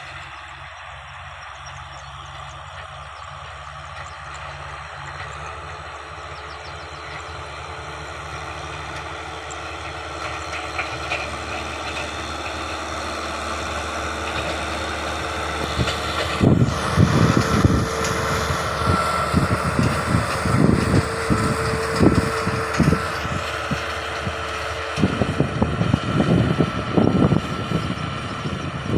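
A farm machine's engine running steadily and growing louder as it comes closer. From about halfway there are irregular heavy knocks and clunks from the machine working.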